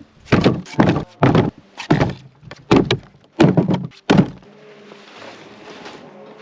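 Pieces of firewood being thrown down one after another: about eight heavy wooden thunks over the first four seconds, then they stop.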